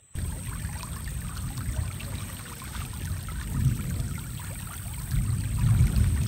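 Shallow creek riffle: water running steadily over rocks, with a low rumble that swells louder twice, once a few seconds in and again near the end.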